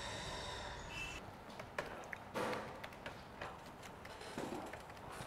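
A steady background hum for about the first second, then scattered taps and clicks of typing on a laptop keyboard.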